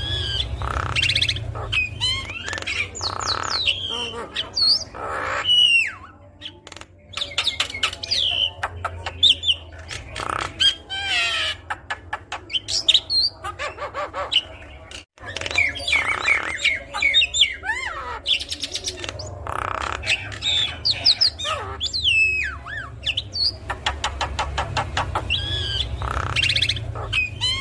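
Javan myna (jalak kebo) singing a long, varied song: fast clicking rattles, harsh squawks and gliding whistles in quick succession, with a brief break about halfway through. A steady low hum runs underneath.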